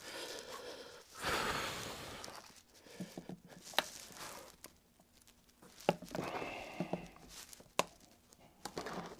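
Small hand tools being handled on a workbench: scattered sharp clicks and light knocks, with a short breathy hiss about a second in.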